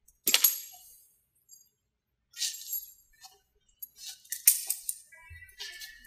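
Metal cable clips and a coiled cable clinking and rattling as they are handled and unpacked, in a few irregular sharp bursts, the loudest near the start and again about four and a half seconds in.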